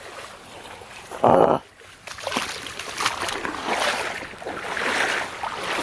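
Creek water splashing and sloshing in irregular bursts, with one short loud burst about a second in.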